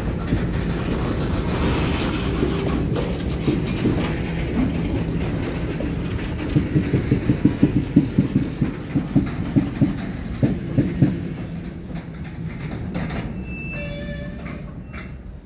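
Freight cars rolling slowly past, a steady rumble with a run of quick wheel clicks over the rail joints through the middle. The sound fades near the end as the train slows almost to a stop, with a brief high squeal.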